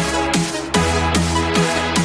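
Electronic background music with a steady beat, short falling notes on each beat and a sustained bass.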